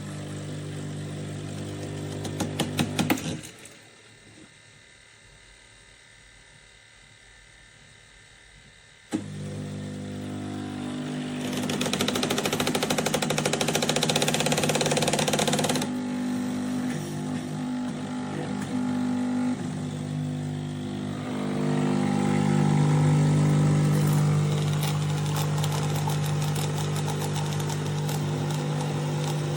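Philips Baristina espresso machine running with a steady buzzing hum. The hum stops about three seconds in, starts again about nine seconds in, and has a louder hissing stretch from about twelve to sixteen seconds.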